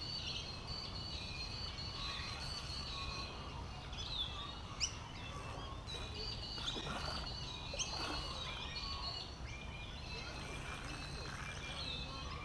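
Birds chirping and trilling in a busy early-morning chorus, with a few sharp rising calls near the middle, over a steady low rumble.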